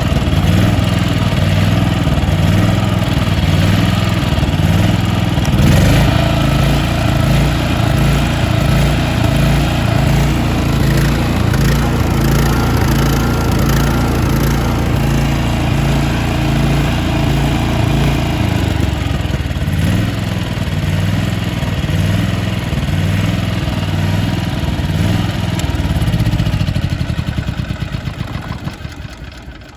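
Shindaiwa EGW185M-IST soundproofed engine welder-generator, a flood-damaged unit, running steadily. Near the end it is shut off and the engine runs down to a stop.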